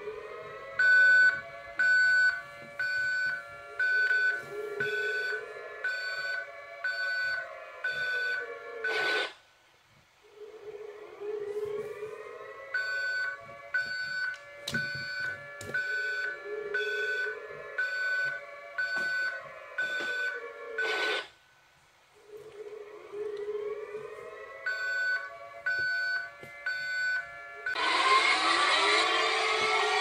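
Emergency alert alarm: a siren tone sweeps up, holds and then drops away, three times over, with a steady beep about once a second on top and short pauses between cycles. About two seconds before the end, a different, louder and harsher alert alarm cuts in abruptly.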